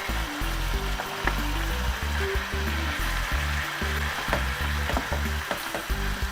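Tomato and mussel-broth sauce sizzling in a frying pan while cooked spaghetti is stirred in, with a few sharp clicks of a utensil against the pan. Background music with a steady bass line plays underneath.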